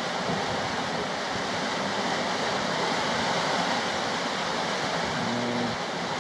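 Steady rush of wind and sea around a sailing catamaran under way offshore.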